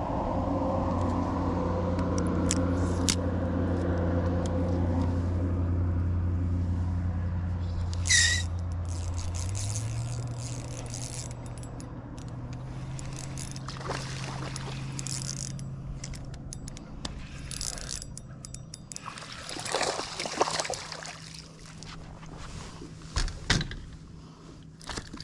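Bass boat motor humming steadily, its pitch stepping up about ten seconds in and again a couple of seconds later, then fading away. A short swish about eight seconds in, and scattered clicks and knocks in the second half.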